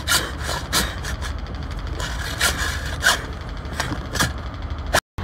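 Hacksaw cutting through the hard shell of a large cooked lobster's claw in uneven back-and-forth strokes, with a low steady rumble underneath.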